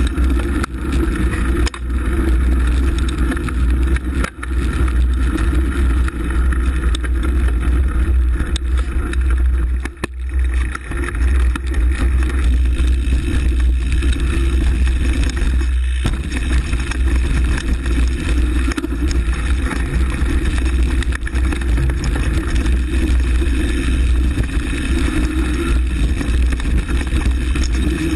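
Steady rushing noise of a mountain bike in motion: wind buffeting the camera's microphone and knobby tyres rolling over gravel and dirt trail. Scattered knocks and rattles come through as the bike goes over bumps.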